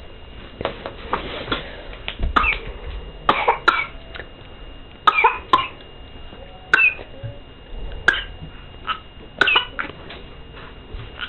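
A baby making short, high cat-like mews over and over in imitation of a cat, about a dozen brief calls roughly a second apart.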